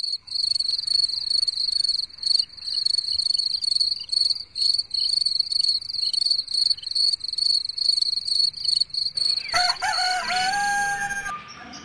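Cricket chirping: a high, steady trill broken into quick rhythmic chirps. About nine and a half seconds in, a rooster crows once, a drawn-out call of about two seconds, over the last of the crickets.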